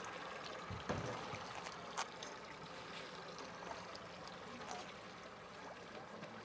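Water trickling and lapping quietly around an inflatable boat, with a dull thump about a second in and a short sharp click at about two seconds.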